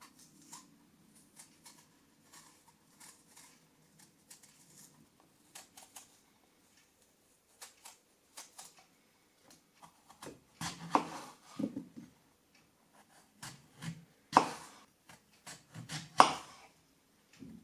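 Kitchen prep sounds: scattered light clicks and taps, then from about ten seconds in louder knocks and thumps of utensils and bowls on a counter.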